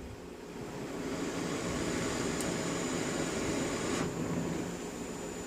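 Gas torch flame hissing steadily as it heats a spot of stretched sheet-metal body panel for heat shrinking. The hiss builds over the first second and drops off sharply about four seconds in.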